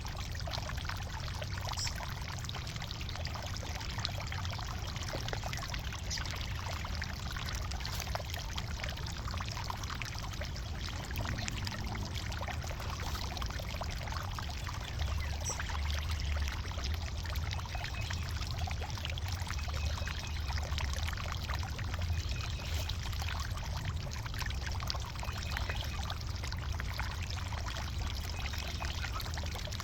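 Loose garden soil rustling and crackling as potatoes are dug out and sifted, over a steady low rumble.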